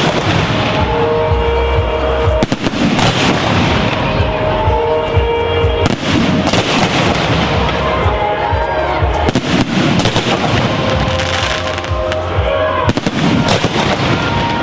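Fireworks going off in many irregular bangs, over loud music with held tones and a bass line.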